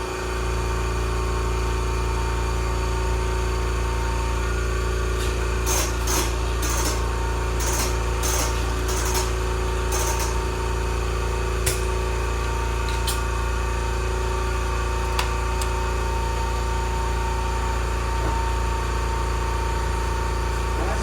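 Air compressor motor running with a steady hum. A quick run of sharp clicks and short hissing bursts comes about five to ten seconds in, and a few single ticks follow later.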